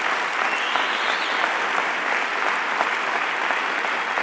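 Applause from a crowd: many hands clapping at once, steady and dense.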